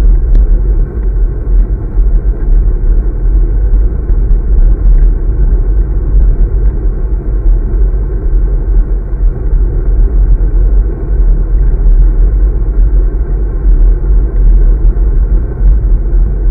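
Wind buffeting and road rumble on a road bike's handlebar-mounted action camera while riding: a loud, steady low rumble with faint scattered ticks.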